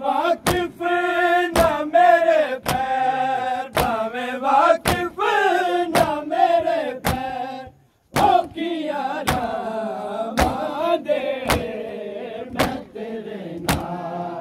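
Male voices chanting a noha (mourning lament) in unison, with sharp collective chest-beating strikes of matam landing together about once a second. The sound cuts out for a moment about eight seconds in.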